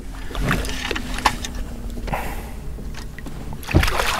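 Water splashing and small knocks against an aluminium fishing boat as a hooked pike is brought alongside to be netted. A steady low hum runs under it and fades about halfway, and there is a louder knock near the end.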